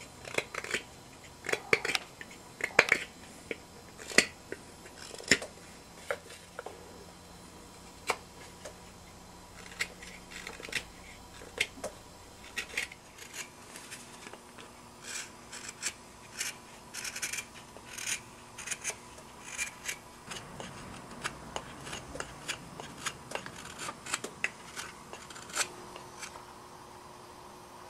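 Medium straight carving knife slicing thin shavings off the outside of a wooden bowl: short, crisp cuts at irregular intervals, some in quick runs, as the edges and rim are cleaned up.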